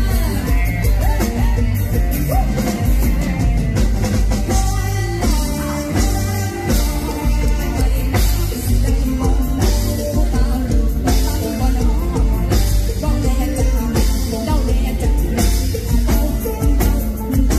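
Live band playing Thai mor lam music, with drum kit and guitar under a woman singing into a microphone.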